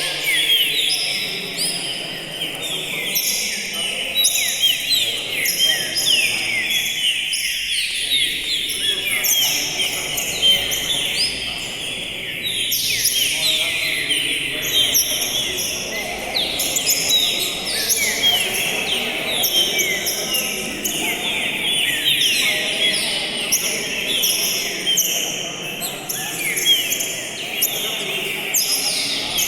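Green-winged saltator (trinca-ferro) singing a tournament-style song: a continuous, dense stream of rapid, high, falling whistled notes.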